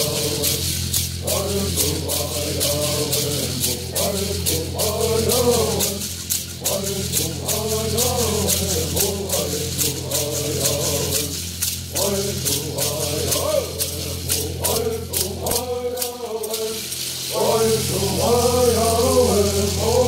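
Southern California bird songs sung by a group of men in unison, accompanied by gourd rattles shaken on a steady beat. About three-quarters of the way through the rattles stop, there is a short dip, and the singing starts again without them.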